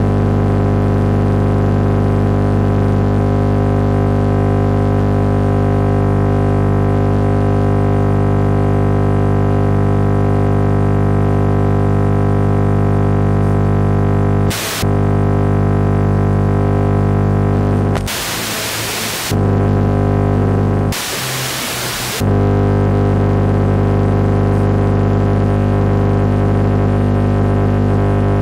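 FM radio tuned to 89.8 MHz playing a loud, steady low buzz with many overtones: interference from a switching power supply's chopping that swamps the transmitter's stereo encoder. The buzz breaks into plain hiss three times, briefly about halfway through and for about a second each time a few seconds later.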